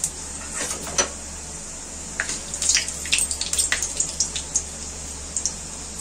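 Fennel, fenugreek and nigella seeds crackling in hot oil in a kadhai: scattered sharp pops, coming thickest through the middle, as the spices roast on a low flame.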